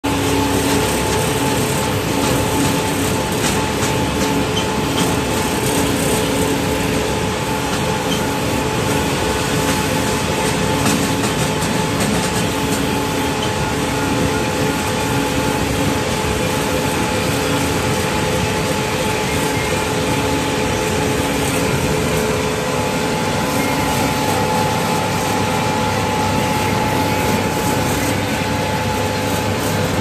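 Combine harvester running down a road, heard from its open operator's platform: a loud, steady engine and machinery hum with a few held tones and a regular throb, under wind and tyre noise.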